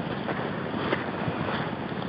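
Steady wind rushing over the microphone, with a few soft steps and splashes of someone walking through shallow water and wet grass.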